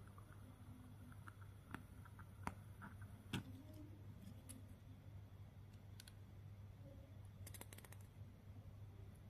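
Near silence with a steady low hum, broken by a few faint clicks and taps from hands handling a lighter and a metal awl, the sharpest about three seconds in. A quick run of small ticks comes near the end.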